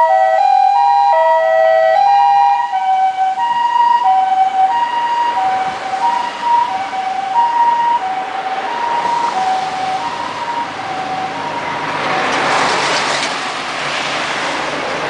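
Japanese ambulance two-tone "pi-po" siren from an Osaka Siren Mark-10 amplifier, alternating a high and a low note about every two-thirds of a second. It fades as the Toyota HiMedic drives away. Near the end the rushing noise of a car and a truck passing close by swells over it.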